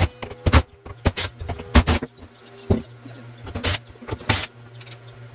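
A run of irregular sharp knocks and clatters, about a dozen in a few seconds and loudest near the start and around two seconds in, over a low steady hum.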